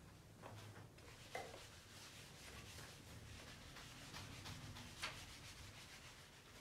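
Faint rubbing and scratching of a pen writing, with a light tap about a second and a half in and another about five seconds in.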